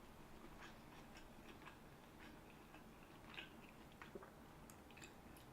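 Faint chewing of a sandwich, with soft, irregular mouth clicks.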